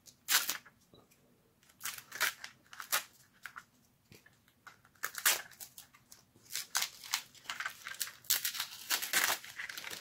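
Masking tape being peeled off a spray-painted plastic blaster shell in short, irregular rips, a few at first and coming thicker from about halfway through.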